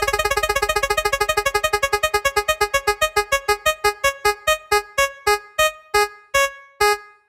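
Spinning prize-wheel sound effect: rapid pitched electronic ticks that slow steadily as the wheel loses speed, down to about two a second before the last tick near the end as it comes to rest.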